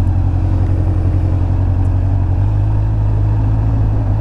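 Honda CBF600's inline-four engine running steadily at low revs, with a slight change in its tone about two and a half seconds in.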